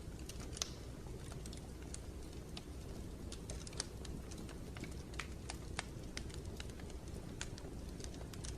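Ambient white-noise track: a steady low rumbling noise with irregular sharp clicks and ticks scattered through it, a few a second.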